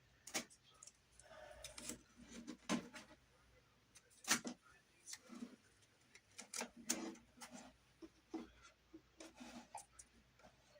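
Scattered light knocks, taps and short rubbing or scraping sounds at irregular intervals, the sharpest knock a little over four seconds in.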